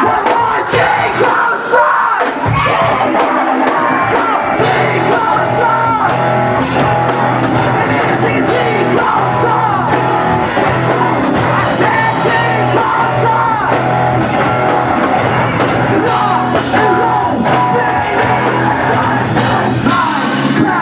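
Live rock band playing loud, with sung and shouted lead vocals. The low end gets much heavier about four and a half seconds in, as the full band comes in.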